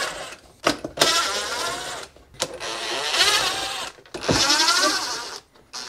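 Cordless power driver backing out the screws that hold a plastic part on a dirt bike's subframe, in several short runs, each one spinning up with a rising whine.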